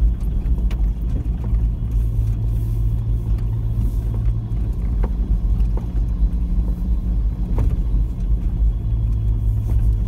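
4WD engine and drivetrain heard from inside the cab as a steady low drone while the vehicle crawls up a rocky track under load, with a few light knocks partway through.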